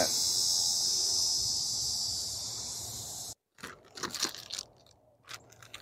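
A steady high-pitched insect chorus that cuts off abruptly about three seconds in. Then a plastic bag wrapped around a potted plant's root ball crinkles and rustles in several short bursts as it is handled.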